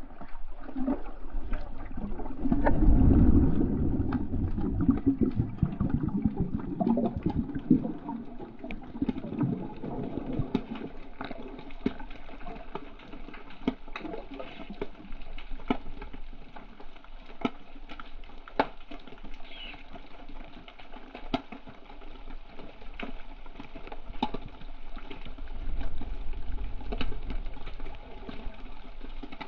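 Sea water sloshing and gurgling, muffled, with many small clicks and crackles throughout. A heavier low surge comes in the first few seconds.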